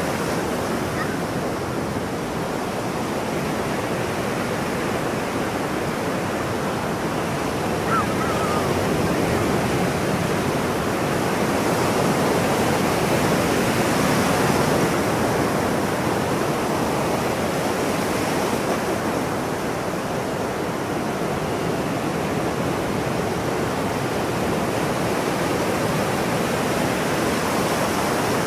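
Ocean surf washing steadily, swelling louder around the middle and easing off again, with one short seagull cry about eight seconds in.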